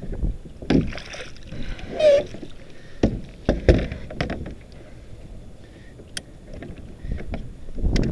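Water slapping against a plastic fishing kayak's hull under a low rumble, with several sharp knocks and thumps of gear on the hull as a hooked fish is brought alongside.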